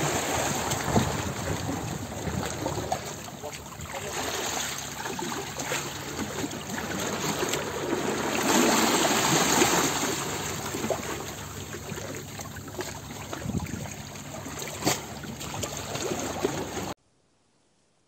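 Small waves washing onto a sandy beach, the surf swelling about eight seconds in and falling back, then cutting off suddenly near the end.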